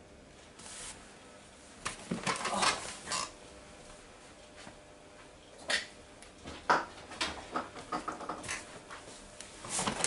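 Hard objects, likely plastic parts and tools, clattering and knocking as they are handled and set down: a cluster of clinks and rattles about two seconds in, a single knock near six seconds, then a run of light clicks and rattles toward the end.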